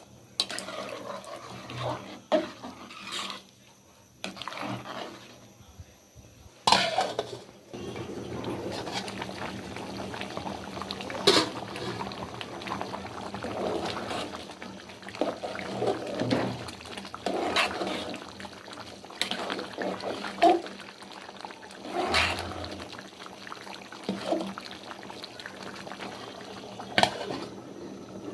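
Cooking sounds at a pot: scattered sharp clinks and knocks of utensils against metal over a steady sloshing of water or liquid.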